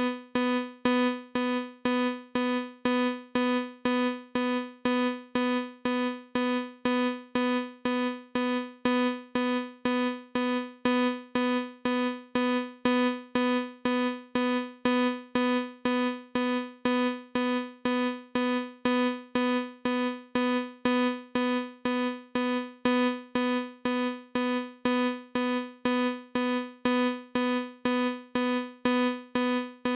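Synthesized alarm-beep sound effect made in Chrome Music Lab's Song Maker: one mid-pitched, piano-like electronic note repeated about twice a second, each beep fading quickly, imitating a fire alarm or alarm clock.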